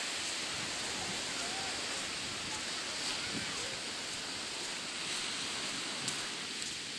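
Steady hiss of sea surf washing onto a rocky shore, with a little wind.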